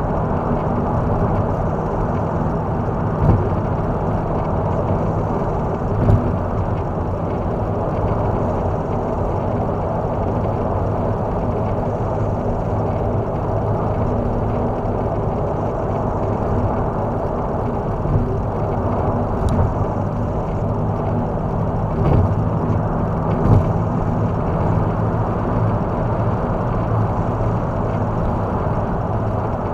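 Cadillac CTS-V's V8 engine drone and tyre and road noise at steady highway cruising speed, heard from inside the car, with a few short thumps from the road.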